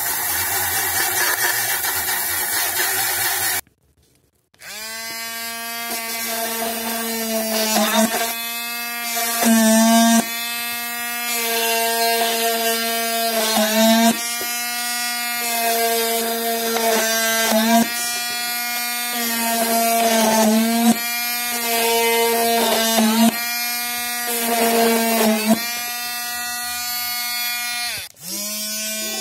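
A mini rotary grinder with a wire brush hissing as it scours the painted aluminium of a drink can. After a short break the tool's motor runs with a steady high whine against a plastic bottle, getting louder and harsher in short bursts each time it is pressed in.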